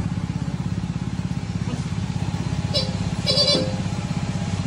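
A small motorcycle or scooter engine idling steadily with an even, rapid pulse. A little after halfway there are two brief, higher-pitched sounds.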